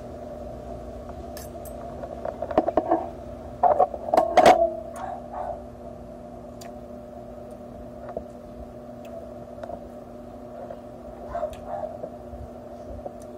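Eating sounds: chewing and short clicks of a spoon and chopsticks against dishes, loudest in a cluster about four seconds in, over a steady background hum.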